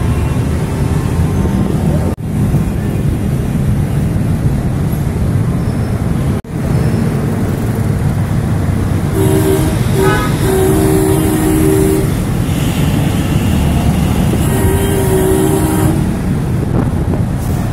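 Road traffic in a jam: a steady rumble of idling and slowly moving engines. Vehicle horns sound three times in the second half, the longer blasts lasting about a second and a half.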